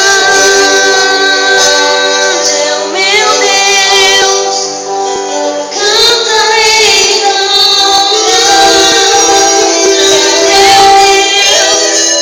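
Music with a female voice singing long held notes over instrumental accompaniment.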